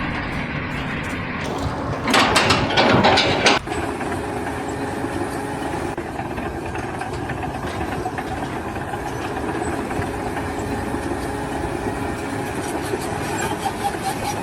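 Heavy machinery running steadily, with a louder rushing burst about two seconds in that lasts a second and a half.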